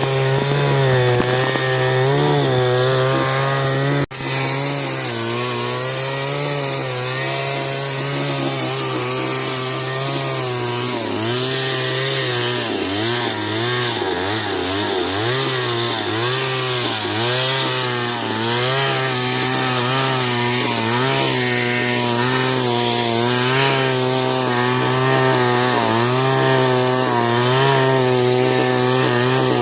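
Chainsaw running continuously, its pitch rising and falling over and over as it works. There is a brief sudden dropout about four seconds in.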